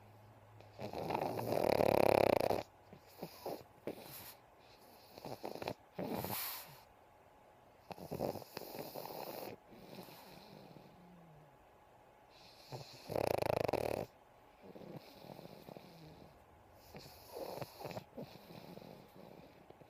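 A pug snoring in its sleep: long snores every few seconds, the first, about a second in, the loudest, with short snuffles and clicks between them.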